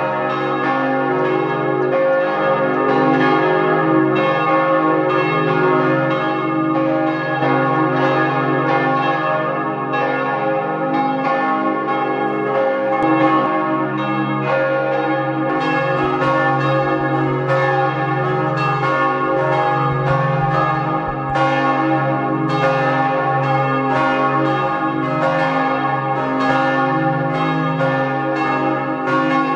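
Several church bells pealing together: rapid, overlapping strikes over a continuous ringing hum, held at an even level.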